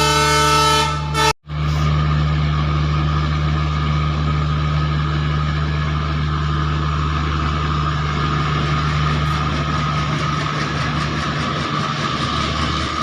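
Locomotive horn sounding a sustained, rich tone that cuts off about a second in. After a brief gap, the locomotive runs with a steady low hum and a fainter higher whine.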